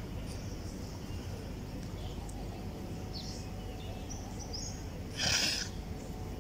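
Steady background hum with a few faint, short bird chirps, and one sharp breath out through the nose lasting about half a second, about five seconds in, from a person exercising.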